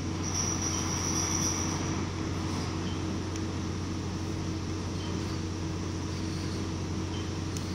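Steady background hum and hiss of room tone, with a faint high whine for about the first two seconds.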